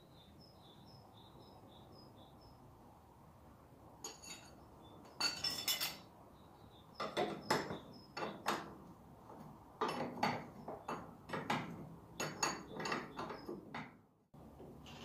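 Steel spanners clinking and clicking against a bolt and bracket as a tractor's fuel-tank mounting bolt is tightened. The clinks begin about four seconds in and come in irregular clusters, with a dense rattle of clicks around the fifth second.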